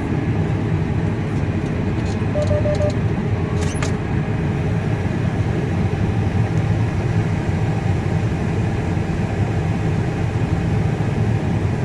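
Combine harvester running steadily while harvesting corn, a constant low machine drone.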